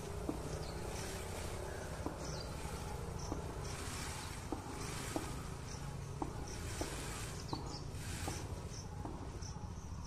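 Insects chirping and buzzing in the vegetation, short high chirps repeating through the whole stretch over a steady low background noise, with a dozen or so short, irregular clicks.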